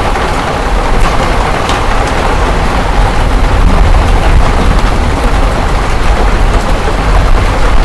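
Heavy storm downpour drumming steadily, with a few sharper hits standing out and a deep rumble underneath.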